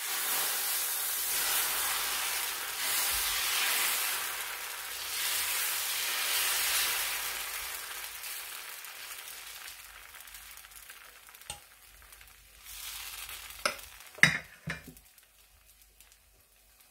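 Dosa batter sizzling loudly as it is ladled onto a hot tawa and spread out in a spiral with the ladle. The sizzle dies down over several seconds as the batter sets, and a few sharp knocks follow near the end.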